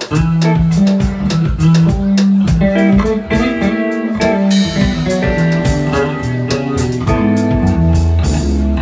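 A live bass, drums and electric guitar trio playing. The full band comes in loud right at the start after a quieter passage. An electric bass plays a moving line under a Sonor drum kit and electric guitar, settling on a low held note near the end.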